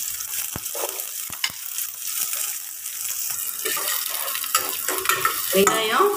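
Chopped shallots sizzling in hot oil with spluttered cumin seeds, stirred by a flat metal spatula that clicks and scrapes against the steel pan. A voice starts just before the end.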